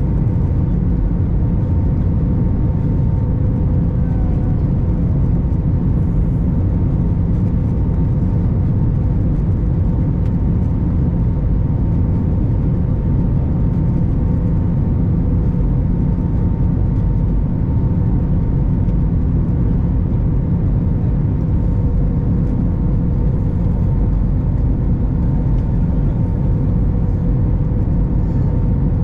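Steady cabin noise inside an Airbus A321 airliner: a loud, even engine and airflow rumble with two steady hums above it.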